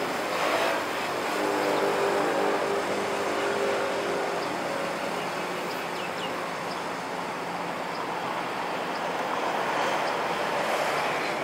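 Street traffic: cars driving past close by at a crossroads, a steady wash of engine and tyre noise, with an engine hum standing out in the first few seconds.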